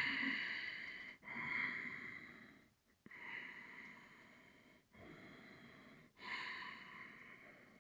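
A man breathing slowly and audibly: about five long breaths in a row, each starting suddenly and fading away over a second or two.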